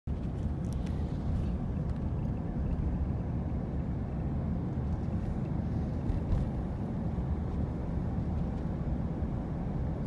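Steady low rumble of road and engine noise from a moving car, heard inside the cabin, with a few faint clicks.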